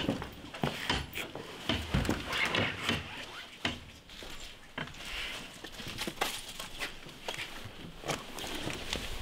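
Rustling of clothing, footsteps and irregular knocks and clinks as a person squeezes through the narrow gap of a chained door.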